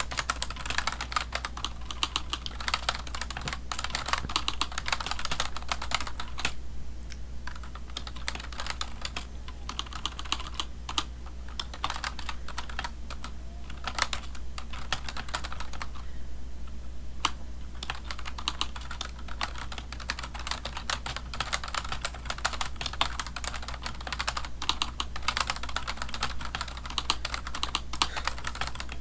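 Typing on a computer keyboard: a fast, uneven patter of key clicks, pausing briefly twice, about a quarter of the way in and just past halfway.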